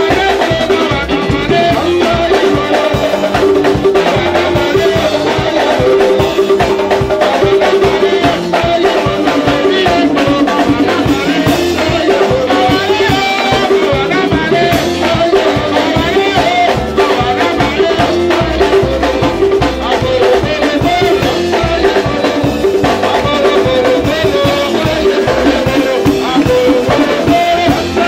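Live worship music: a man singing into a microphone over a band with drums and percussion.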